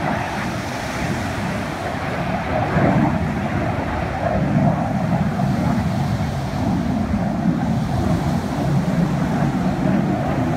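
Jet fighter's engine noise from a low pass over the water, growing louder about two and a half seconds in, mixed with wind on the microphone and surf.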